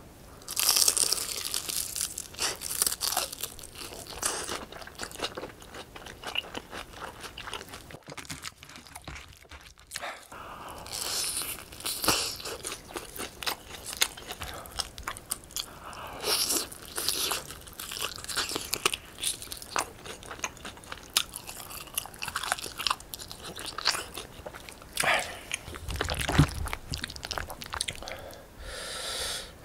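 Close-miked eating: crunching bites of crispy fried chicken and wet chewing of saucy rice cakes, fish cake and noodles, in irregular clusters of crackling bites, with a short lull about eight seconds in.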